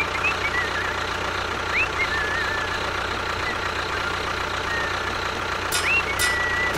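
An engine running steadily at idle, with a few short, high chirps over it.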